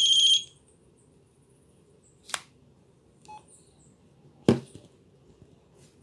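Pantech Reveal (C790) mobile phone sounding a short, high-pitched electronic alert tone of about half a second. Two sharp clicks follow about two seconds apart, the second one louder.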